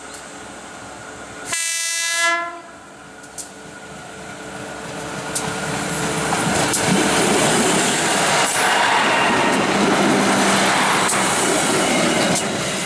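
Train horn sounds once for about a second as the KAI special train approaches. The train then passes close by: a rumble that builds as it draws level, with its wheels clicking over the rail joints.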